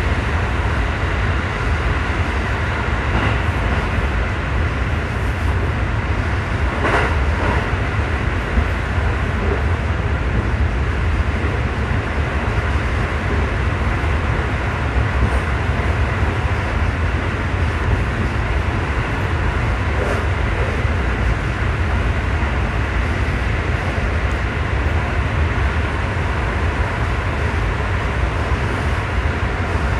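JR 211-series electric train running through a tunnel, heard from inside the cab: a steady, loud low rumble of wheels on rail and running gear, with a brief higher sound about seven seconds in.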